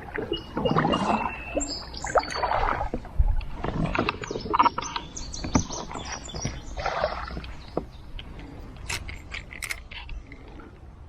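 Water swishing and splashing against a kayak in surges every couple of seconds, then a few light clicks and knocks near the end.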